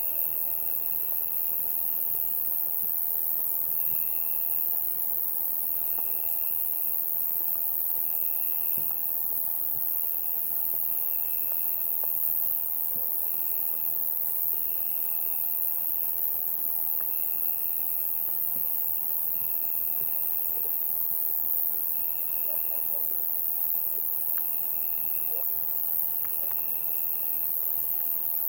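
Summer night insect chorus of crickets: a steady, very high-pitched shrill drone, with shorter trilled chirps at a lower pitch repeating every second or two.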